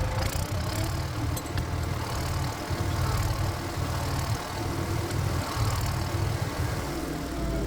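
Walk-behind power tiller's engine running steadily while it works through tough black locust firewood. A whine over the engine rises in pitch near the start and falls again near the end, with a few sharp clicks in the first second and a half.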